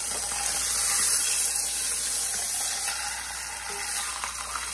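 Beef brisket searing in hot oil in an enameled cast-iron pot: a steady, high sizzle that grows louder about a second in as the brisket is turned over with tongs onto its unseared side.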